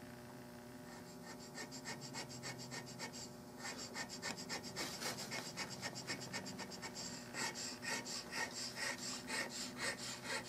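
Hand checkering tool cutting lines into a walnut gunstock: short scraping strokes, several a second, in a fast even rhythm. They start about a second in and get louder after about three and a half seconds.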